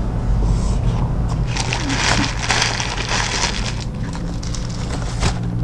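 Crunching and crinkling as a McDonald's double chicken Rio burger with a crispy fried chicken patty is bitten and chewed close to the microphone, dense with small cracks for a few seconds before stopping near the end. A low steady hum runs underneath.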